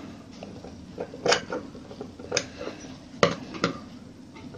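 Fabric scissors snipping through the seam allowances of a pieced cloth strip, four short sharp snips with the last two close together, trimming away the crosswise seam joints.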